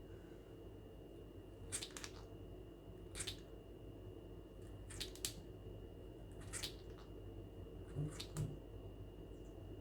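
Blue Quaker parrot grinding its beak: short scraping bursts, about one every second and a half, some in quick pairs. Beak grinding is a sign of a relaxed, settling bird.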